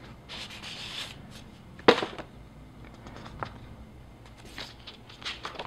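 Paper documentation leaflets being unfolded and handled: soft rustling of paper, with one sharp tap about two seconds in and a smaller one later.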